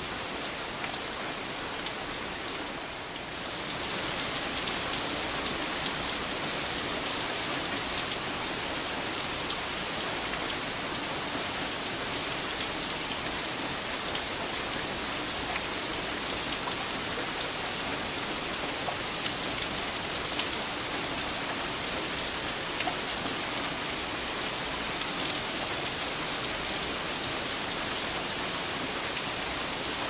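Steady rain falling, a dense even hiss of drops with scattered individual drops ticking, growing slightly louder about three to four seconds in.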